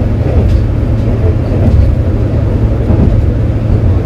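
KiHa 47 diesel railcar running between stations: a steady low drone of the diesel engine mixed with wheel-on-rail rumble, with a few faint clicks.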